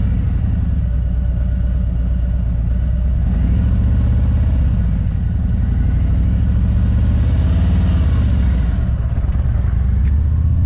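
Motorcycle engine running with a steady low rumble, the revs rising and falling a little a few times as the rider works the throttle and clutch.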